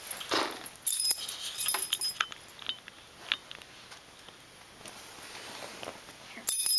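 A greyhound's collar tags jingling in bursts as the dog moves about, with scattered light clicks and rustles between.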